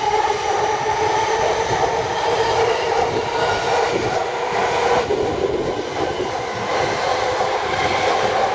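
Yamanote Line electric commuter train pulling out of the station and running away along the track, its motors giving a steady whine over the rumble of the wheels. The lower tone of the whine drops away about five seconds in.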